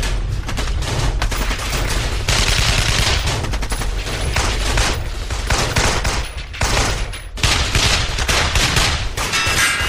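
Sustained heavy gunfire: rapid, dense bursts of automatic fire over a continuous low rumble.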